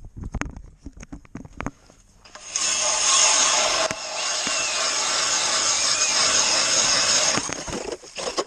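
Cordless Milwaukee M18 Fuel brushless drill spinning an ice auger bit and boring through ice, its blades shaving ice in a loud, steady grinding that starts about two seconds in, eases for a moment near four seconds, and stops near the end. A few short knocks come before it.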